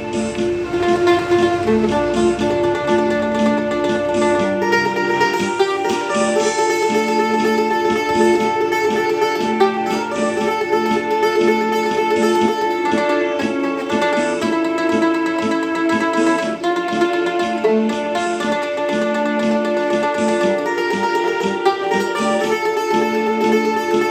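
Mandolin playing a melody in D minor, the notes picked in a continuous stream over a steady low accompaniment.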